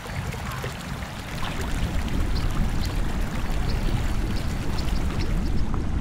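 Shallow water churned by a shoal of fish at the surface: a steady rushing splash with many small plops and drips, growing louder about a second and a half in.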